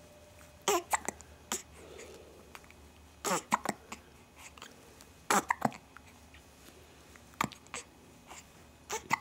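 Repeated hiccups, short sharp catches about every two seconds, most followed closely by a smaller one.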